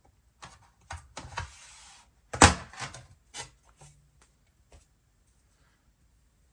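Aluminium bottom case of an early 2015 MacBook Pro being lifted off: a series of light clicks and knocks with a short scrape, the loudest knock about two and a half seconds in.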